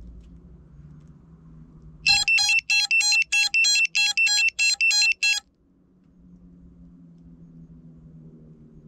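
A rapid train of about a dozen loud electronic beeps, some three or four a second, lasting about three seconds and then stopping abruptly, over a faint low hum.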